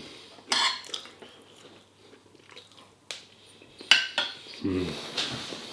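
Cutlery and crockery handled while eating: a scrape about half a second in, then several sharp clinks a few seconds later.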